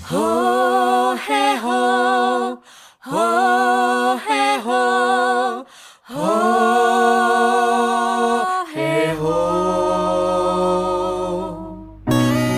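A woman singing solo and unaccompanied in long held notes with vibrato: three phrases with short breaks between them, then a lower, quieter sustained note.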